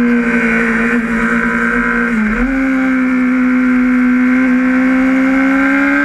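Sportbike engine on track at high revs, heard from on board, its note held fairly steady with a short dip in pitch about two seconds in, then climbing slowly as the throttle opens.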